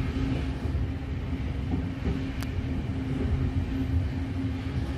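Commuter train standing at an underground platform with its doors open: a steady low rumble with a humming tone, and one sharp click about halfway through.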